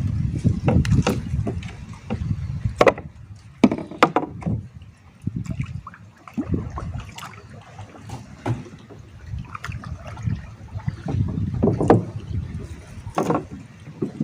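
Water splashing and sloshing with irregular sharp knocks and clatters, like handling in a small boat; a low rumble at the start dies away within about two seconds.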